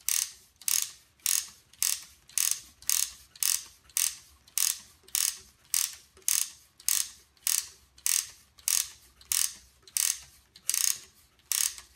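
Wooden ratchet and pawl of a Ugears Truck UGM-11 mechanical model clicking as its rubber-band motor is wound up by hand: a short ratcheting rasp about twice a second, each stroke of the winder storing more tension in the rubber bands.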